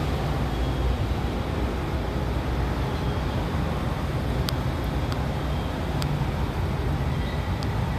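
Steady low rumble of vehicle noise, with a few faint short clicks from about halfway through.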